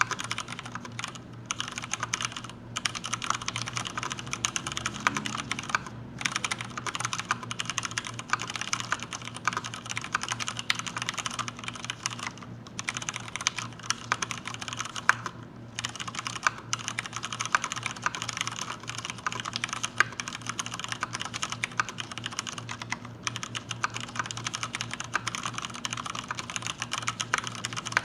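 Hansung GK998B full-size mechanical keyboard with Cherry MX Brown switches being typed on in a rapid, continuous run of key clacks, broken by a few brief pauses: a typing test of the switches.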